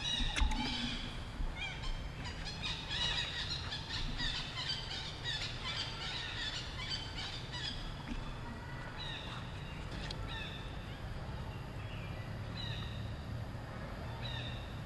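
Short high-pitched animal calls, many close together in the first half, then a few separate falling calls, over a steady low rumble.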